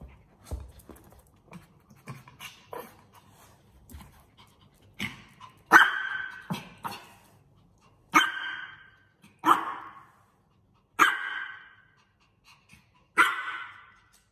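A small dog barking: about five sharp single barks, spaced a second or two apart, after a few seconds of faint rustling and clicks.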